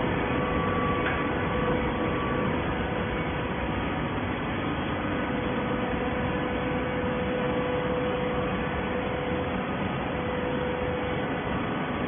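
Automatic horizontal hydraulic baler running: a steady machine noise with a constant whine held on one pitch.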